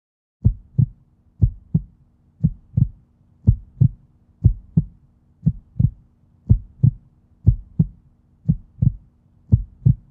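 Heartbeat sound: pairs of low thumps, lub-dub, repeating about once a second, over a faint steady low hum.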